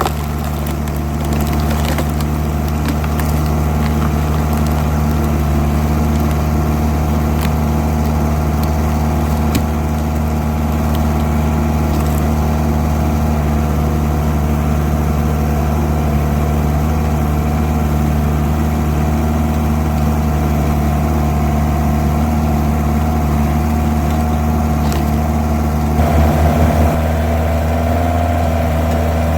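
Mini skid steer's engine running steadily under hydraulic load while it drives a screw-cone log splitter, with a few sharp cracks and a brief louder surge near the end.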